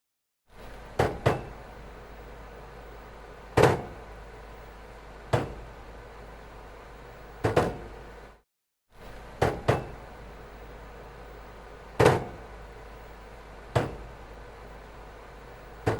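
Bowling balls on a ball return bumping against each other and the rack: sharp single and double knocks every one to two seconds, over a steady low hum.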